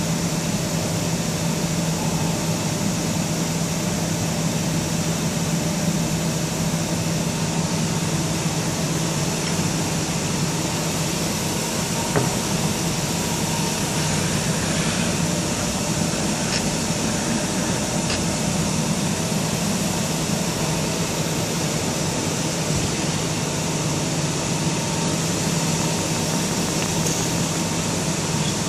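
Steady mechanical hum and hiss of running cooling fans, with a low constant drone and a fainter higher steady tone. A few faint clicks come through in the middle.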